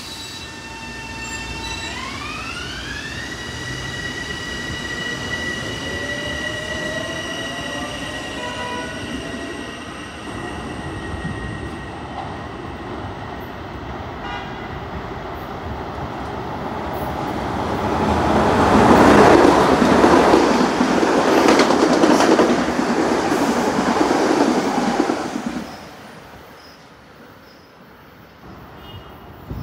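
Electric multiple-unit commuter trains on the rails: a high electric whine from the traction motors steps up in pitch about two seconds in as a train gets under way, over a steady rumble of wheels on track. About eighteen seconds in a train runs close by with loud wheel and rail noise for some seven seconds, which then stops abruptly.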